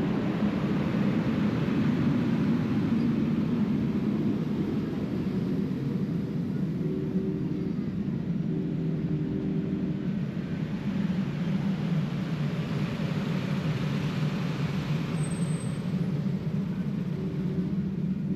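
Union Pacific passenger cars of the Big Boy 4014 excursion train rolling past close by: a steady, low rumble of steel wheels on the rails.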